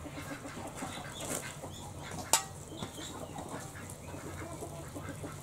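Jaggery syrup bubbling at the boil in an iron kadai as grated coconut is tipped in from a steel plate, with a single sharp tap about halfway through and faint calls in the background.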